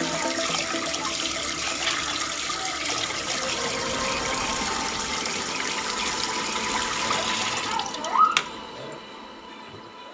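Water running steadily from a kitchen tap. About eight seconds in it stops with a short rising squeak and a click as the tap is shut off.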